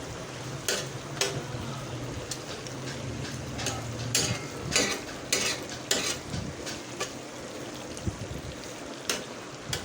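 Chicken in tomato paste and ghee frying with a steady sizzle while a spoon stirs it, scraping against the pan in irregular strokes; a low steady hum runs underneath. This is the bhuna stage, frying the masala until the ghee separates.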